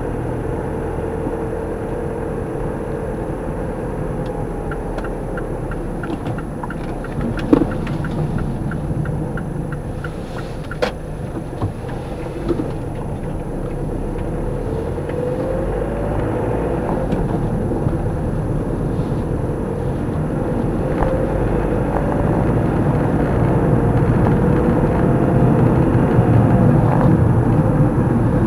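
Car driving, heard from inside the cabin: steady engine and road rumble, the engine note dipping and then rising, and growing louder toward the end. A run of light, regular ticks lasts a few seconds early on, and a few sharp knocks come around the middle.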